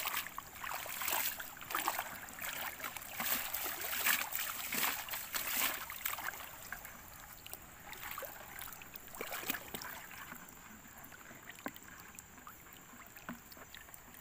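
Irregular splashing and sloshing of shallow water, busier in the first half and lighter after about the middle.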